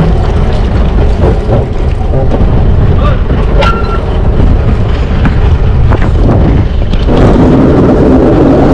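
Small fishing trawler's engine running with a steady low rumble, growing louder and fuller about seven seconds in.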